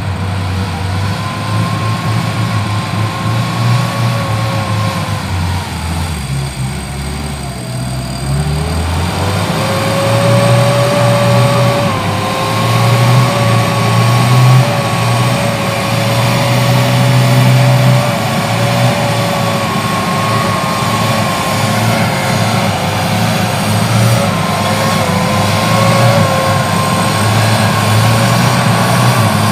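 Off-road vehicle running under load, a steady whine over a low engine drone. The whine sags about a quarter of the way in and climbs back a couple of seconds later, then holds.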